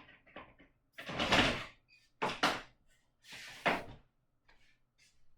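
Clamps being loosened and taken off a track saw's guide rail: a few short scraping, sliding clatters about a second apart, with small clicks between.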